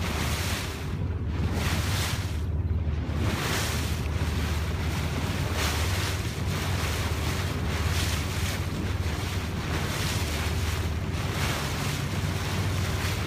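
Steady low drone of a boat engine under wind buffeting the microphone, with the wash of open sea water; the wind gusts come and go throughout.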